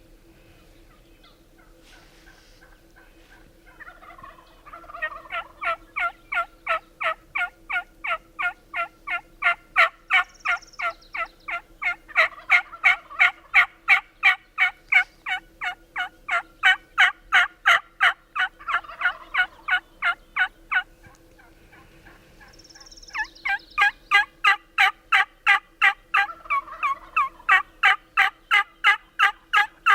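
Turkey yelping: a long, fast run of evenly spaced, raspy notes at about three a second. It breaks off for a couple of seconds near two-thirds of the way through, then starts up again.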